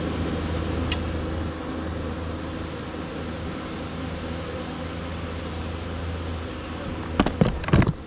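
Honeybees buzzing steadily around an open hive box full of bees, with a few sharp knocks near the end.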